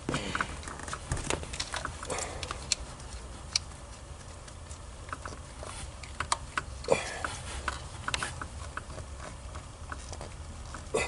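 Scattered small metallic clicks and taps: hand and tool work on the mounting bolts and nuts of a new ignition coil in a van's engine bay. A steady low hum sits underneath.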